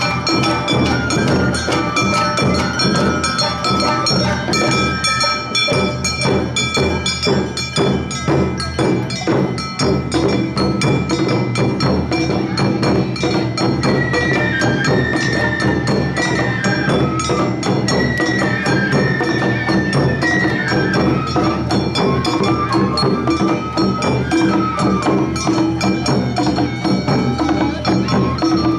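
Awa Odori festival band (narimono) playing: a high bamboo-flute melody over drums and a clanging kane hand gong, in a steady driving rhythm.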